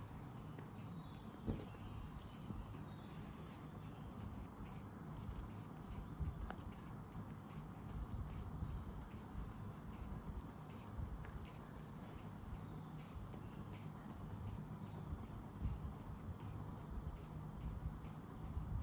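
Steady, high-pitched insect trilling that pulses rapidly, over a low rumble of background noise, with a few brief knocks.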